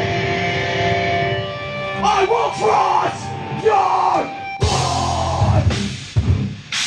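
Heavy rock band playing live, loud. A held distorted electric guitar chord rings, a shouting voice comes in over it about two seconds in, and the whole band with drums comes in about four and a half seconds in.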